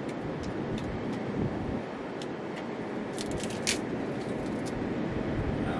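Dry driftwood sticks clicking and knocking against each other as they are picked up and handled, a quick cluster of sharper cracks about three to four seconds in, over a steady rush of wind and surf.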